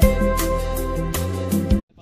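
Background music with a beat and held melody notes, cutting off suddenly near the end.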